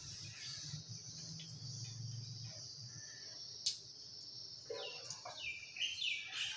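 Steady high-pitched insect trilling, like crickets, with one sharp metal clink about halfway through, like a spoon against a steel bowl, and a run of quick falling chirps near the end.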